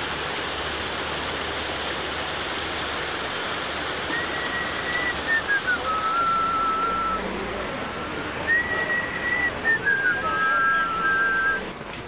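Someone whistling a simple phrase of held notes, a high note stepping down to a lower one. It starts about four seconds in and is whistled twice. A steady rushing noise runs underneath.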